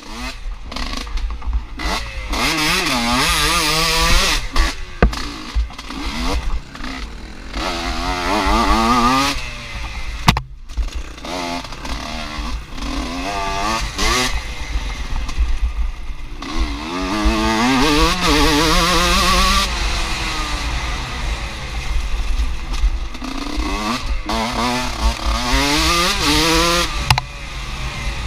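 Enduro motorcycle engine revving up and dropping back over and over as the bike accelerates and slows, with steady wind rumble on the bike-mounted action camera's microphone and a few knocks from bumps.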